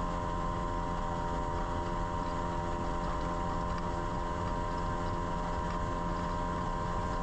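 Boat motor running at a steady speed while under way: a constant hum over a dense low rush of wind and water.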